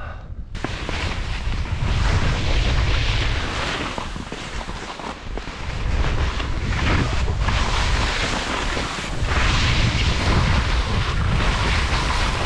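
Wind rushing over an action camera's microphone during a fast ski descent, with the skis hissing and scraping over firm spring snow. It starts about half a second in and swells and eases every few seconds as the skier turns.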